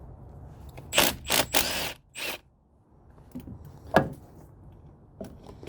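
Handling noise close to the camera's microphone: loud rustling scrapes about a second in, another shortly after, then a single sharp knock about four seconds in, from the camera being bumped.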